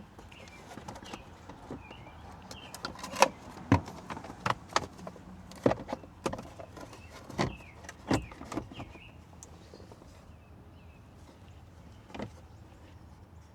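Irregular hard clicks and knocks of plastic dash trim being handled and pressed into place. The two loudest come about three seconds in and about eight seconds in, and the taps thin out in the last few seconds.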